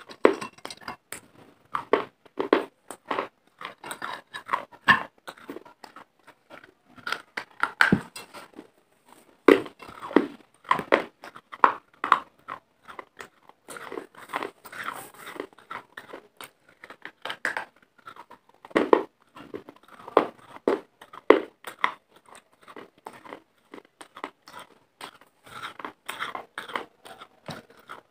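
Pieces of clay being bitten and chewed right at a lapel microphone: a dense run of sharp, irregular crunches.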